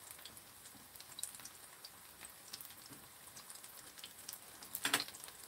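Kimchi pancake frying in oil in a pan: faint sizzling with scattered little crackles and pops, and a louder crackle about five seconds in.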